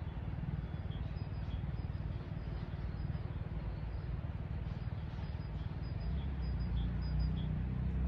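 Low rumble of a motor vehicle, growing louder near the end as it draws closer.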